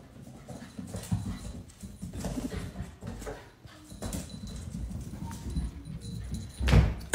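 Paws scrabbling and pattering on a hard wood-look floor as pets chase each other, in irregular quick footfalls and clicks, with a louder dull thump near the end.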